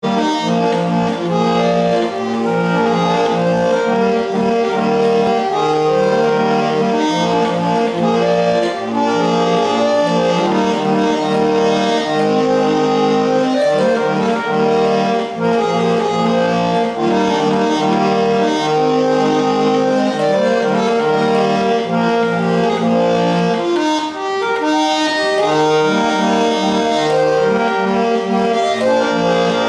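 Hand-cranked barrel organ of a Theroude monkey automaton playing a tune: sustained reedy organ notes over a steady held accompaniment, running without a break as long as the handle is turned.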